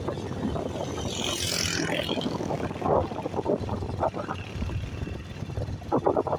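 A vehicle's engine running while on the move, a continuous rumble with uneven louder bumps.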